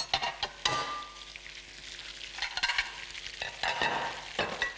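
Silicone spatula stirring and scraping kohlrabi and radish vegetables around a non-stick frying pan, several separate scrapes over a steady sizzle of frying.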